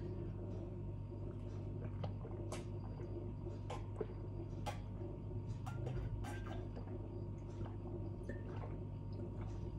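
A person drinking water: faint wet clicks and swallowing sounds scattered over a steady low hum.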